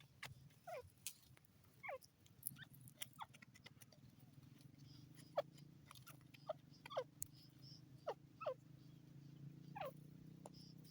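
Francolin (teetar) giving faint, short downward-sliding call notes, scattered one or two a second, over a low steady hum that comes in about two seconds in.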